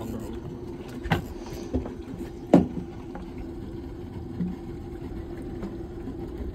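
Boat engine idling steadily, with three sharp knocks: about a second in, shortly after, and a louder one about two and a half seconds in.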